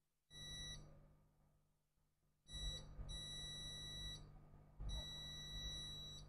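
Multimeter continuity beeper sounding four times at one steady high pitch, in beeps of uneven length from a fraction of a second to over a second, as the probes make and break contact: each beep marks a closed circuit between the probes.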